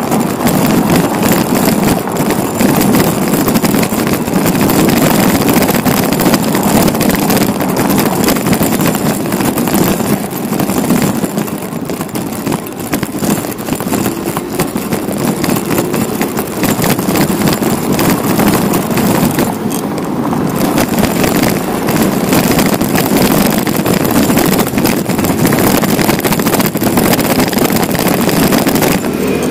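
Continuous loud rush of wind and road noise on the microphone of a bicycle ride through city streets, easing slightly twice, a little after ten seconds and around twenty seconds.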